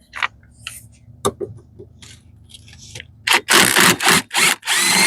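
Scraping and rubbing under a Polaris RZR as its skid plate is worked free: a few light scrapes and knocks, then several loud long scraping strokes in the last two seconds.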